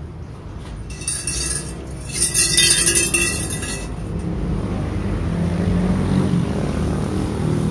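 A road vehicle's engine running, growing louder from about halfway through. It is preceded by about three seconds of bright metallic rattling.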